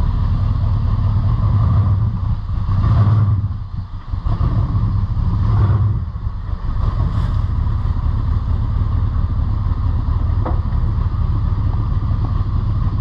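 Mako Shark III custom car's engine running at a steady idle, with two brief throttle blips about three and six seconds in.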